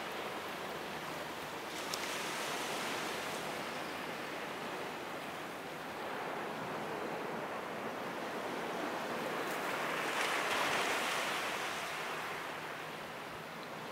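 Small sea waves washing in, a steady wash that swells twice, briefly about two seconds in and more strongly about ten seconds in.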